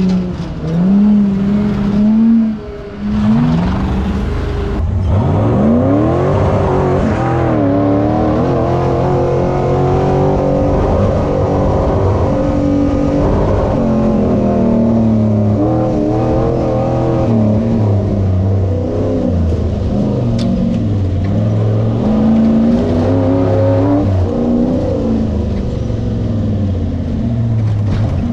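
Off-road race vehicle's engine running under hard throttle, its pitch repeatedly rising and falling as the throttle is worked, with a steep climb about five seconds in.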